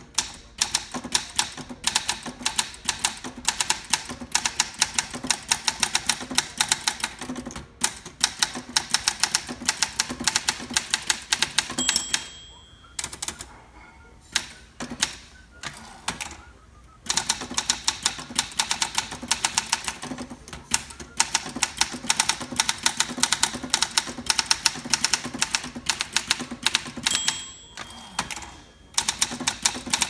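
Olympia SM8 manual typewriter being typed on quickly: a steady, dense run of key strikes. The margin bell rings about twelve seconds in and again near the end, each time followed by a short pause while the carriage is returned.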